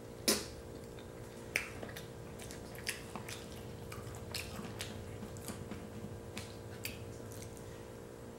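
Close-up eating sounds: wet mouth smacks and clicks while chewing a butter-dipped boiled potato, a dozen or so sharp smacks at irregular intervals, the loudest just after the start.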